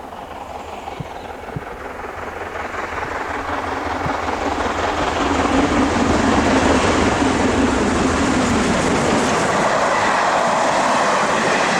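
Train hauled by a GNR 4-4-0 steam locomotive with wooden coaches, growing louder as it draws near over the first six seconds or so, then running by at a steady loudness.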